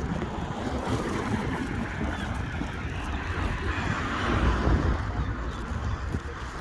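Road traffic: a steady rumble with a vehicle passing close by, loudest about four seconds in.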